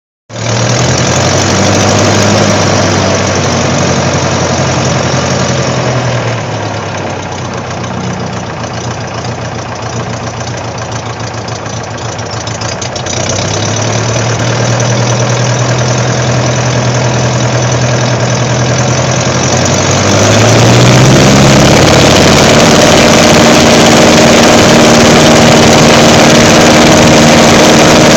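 Pietenpol Air Camper's piston engine heard from the front seat, running at low power for about 20 seconds with a slight dip and rise in speed, then opened up to full power for the takeoff run, rising in pitch and settling to a loud, steady drone.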